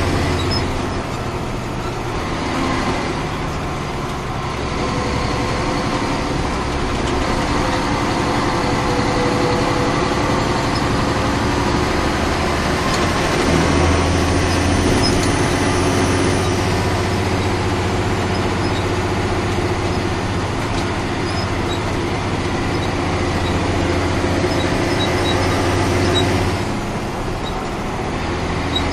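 Caterpillar 3406 inline-six turbo diesel of a 1994 Ford L9000 truck running as the truck is driven, a deep steady engine note that steps up and down in pitch and level several times.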